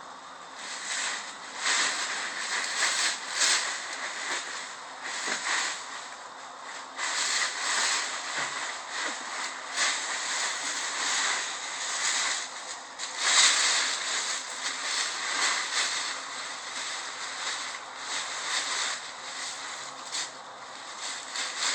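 Dry fallen leaves rustling and crunching in irregular bursts as a dog moves, digs or rolls through them.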